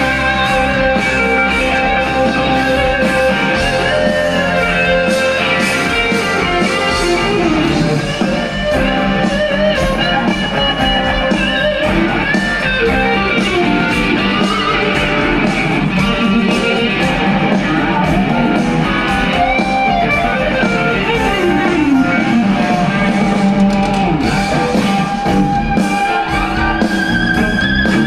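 Live rock music from electric guitar and electric violin over a drum beat, loud and continuous, with long wavering held notes and sliding pitches, one falling a little past twenty seconds in and one rising near the end.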